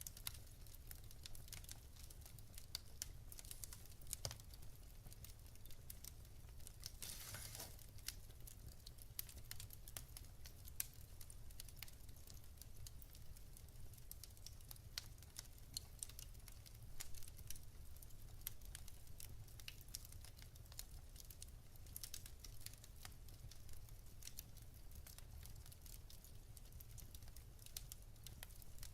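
Wood fire in a fireplace crackling: irregular sharp pops and ticks of burning logs, with a brief hiss about seven seconds in.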